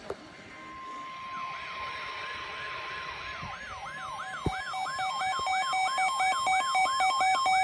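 Electronic alert signal: a steady tone, joined about a second in by a fast siren-like warble that rises and falls about three times a second, and about halfway by a second, lower steady tone. It grows louder toward the end, as an alert ahead of the next weather warning.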